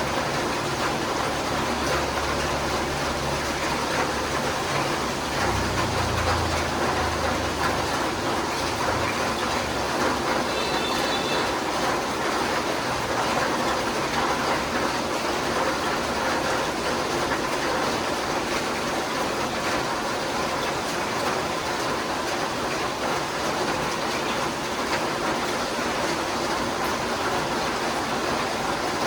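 Steady rain patter, an even hiss of many drops with no thunder or wind. A low rumble runs underneath for the first several seconds, then fades.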